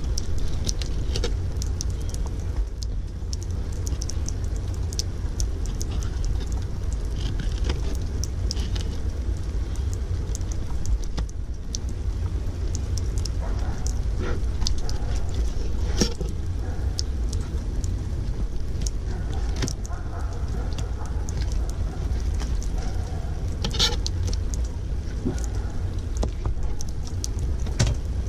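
Water running and spattering onto a plastic fish-cleaning table, with scattered short scraping and clicking strokes as a knife scrapes the scales off a porgy.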